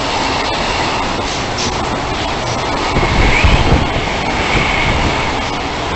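Freight train wagons rolling past at speed, a steady loud rush and rumble of wheels on rail, with a thin high wheel squeal from about three seconds in.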